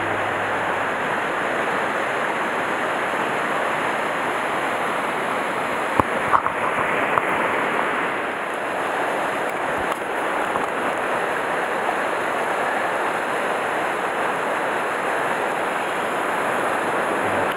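Mountain stream rapids: white water running fast over rocks, a steady even rush of water, with a few faint knocks about six and ten seconds in.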